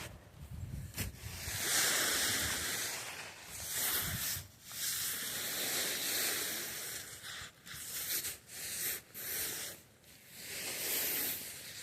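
Snow being swiped off a surface: a hissing swish that comes in several long strokes with short breaks between them.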